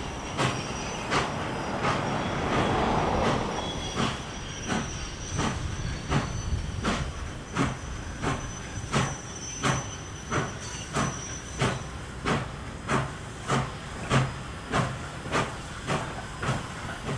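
Nickel Plate Road 765, a Lima-built 2-8-4 Berkshire steam locomotive, chuffing steadily under way, with its exhaust beats coming about three every two seconds and a little faster toward the end. A brief rushing noise swells about two seconds in.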